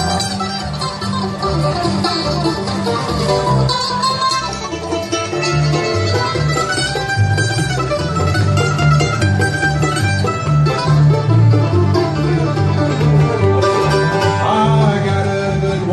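Bluegrass band playing an instrumental break between verses, mandolin and other picked string instruments over a steady beat.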